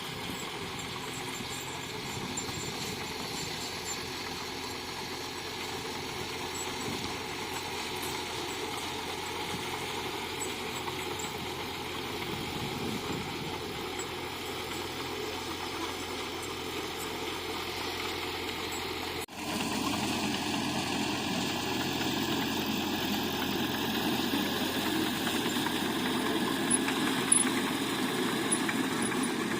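Heavy diesel engine of earthmoving machinery running steadily. It breaks off abruptly about two-thirds of the way through and comes back somewhat louder, with a few sharp knocks near the end.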